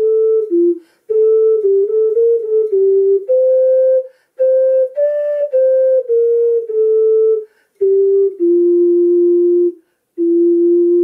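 Dinda AC ceramic ocarina played solo: a slow hymn melody in clear, pure notes, phrase by phrase with short breath pauses between, one phrase ending on a long held low note.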